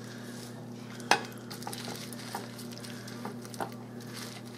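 A plastic-gloved hand rolling a chicken thigh through a thick yogurt-based dip in a glass bowl: soft stirring and squishing with a few light clicks, the sharpest about a second in, over a steady low hum.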